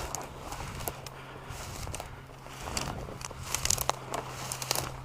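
Dry field cover rustling and crackling, a scatter of small snaps and crunches as someone moves through it.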